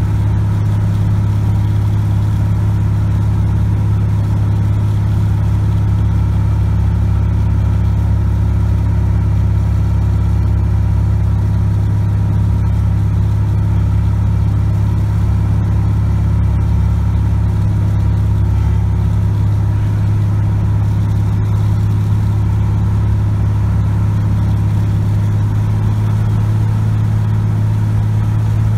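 Cessna 180 Skywagon's six-cylinder Continental O-470 engine and propeller droning steadily, heard from inside the cockpit on final approach.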